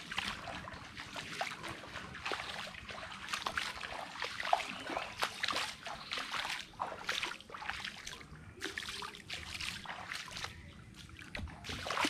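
Footsteps splashing and squelching through shallow water and mud, one wet step after another.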